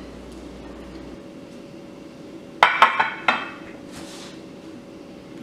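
Metal cutlery clinking against kitchen dishware: four quick ringing clinks a little over two and a half seconds in, then a short soft brushing sound.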